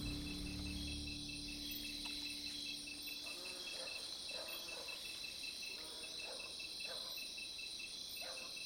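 Night-time crickets chirping: a steady high trill with an evenly pulsed chirp at about four a second.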